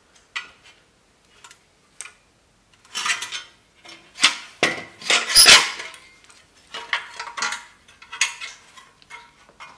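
Steel wheel hub assembly and sheet-metal dust shield from a Dana Super 60 front axle clanking and rattling as they are handled and set down, in an irregular series of metallic clanks, loudest about five seconds in.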